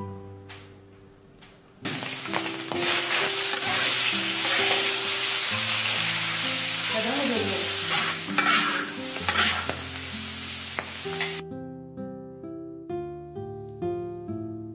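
Food frying and sizzling loudly in a hot pan as it is stirred, starting about two seconds in and cutting off suddenly near the end, over background music.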